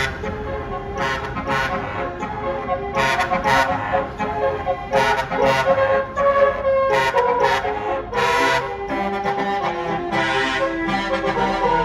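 Bus telolet horn of the Basuri type, playing a multi-note melody with a regular beat, its notes changing every fraction of a second.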